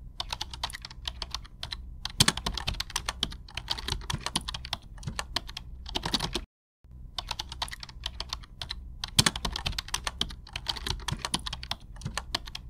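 Rapid, irregular clicking and tapping like fast keyboard typing, steady throughout, with a brief break a little past halfway.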